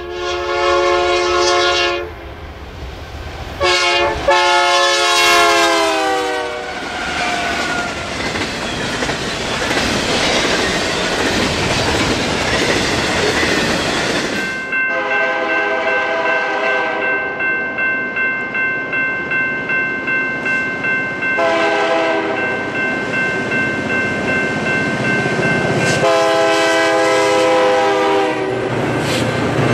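Diesel freight locomotive air horn blowing several long blasts, its pitch dropping as the train passes, followed by the rumble and clatter of the train rolling by. Later, more horn blasts sound over a steady high ringing tone.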